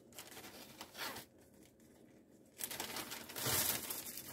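Plastic zip-top bag crinkling as its seal is pulled open, then louder rustling of the plastic and the dried echinacea leaves inside as a hand reaches in, about two and a half seconds in.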